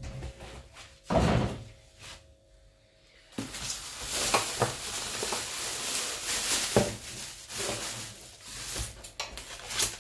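Plastic wrapping bag crinkling and rustling as it is pulled off a boxed sandwich maker, with a thump about a second in and a few handling clicks near the end.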